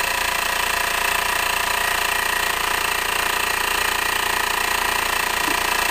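Homemade 10cc pressurized rhombic-drive Stirling engine running steadily under load from its generator at about 1,740 rpm, a fast, even mechanical beat.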